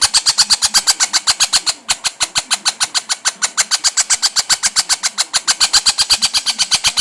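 Princess parrot making its weird alarm noise: a fast, steady train of sharp clicks, about ten a second, that sounds like a dolphin.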